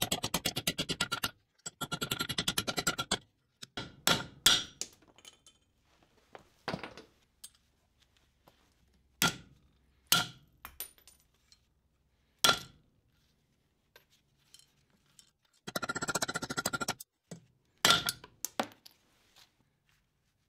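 Small metal scrap parts being handled and dropped into a container. Quick rattling clatters near the start and again about 16 seconds in, with about eight separate clinks and thunks in between.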